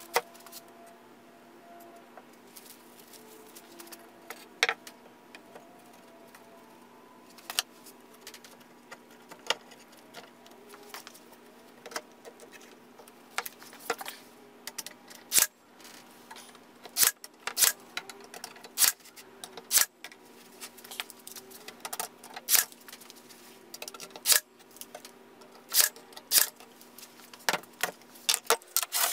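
Cordless brad nailer firing brads into 1x2 wooden rails on a plywood panel: sharp snaps about once a second through the second half, after a few scattered knocks and clicks of wood and tools. A faint steady hum lies underneath.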